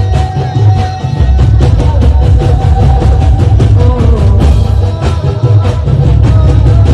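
Music with a heavy, driving drum beat and strong bass.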